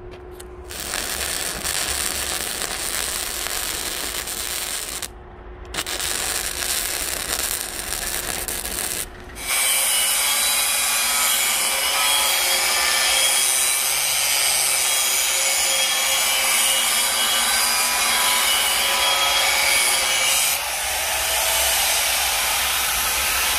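Power grinder grinding the edge of a steel axe blade: a steady rasping grind that stops briefly twice in the first ten seconds, then runs on louder with a steady whine.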